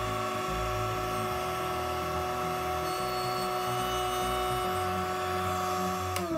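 Table-mounted router running at a steady high whine while a hardwood board is pushed along the fence in a light skim pass, then switched off near the end, its pitch falling as the bit spins down.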